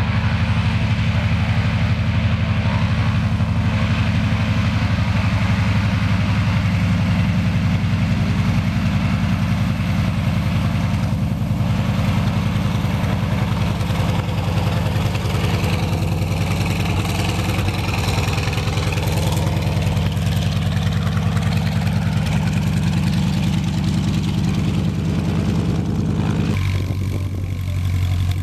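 Antonov An-2 biplane's nine-cylinder radial engine running steadily at taxi power as the aircraft taxis on grass, a loud low drone. The sound changes abruptly near the end.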